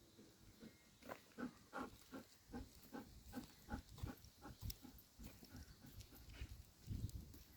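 A Belgian Malinois panting, faint and rhythmic at about three breaths a second, the dog heated on a hot day; a low thump near the end.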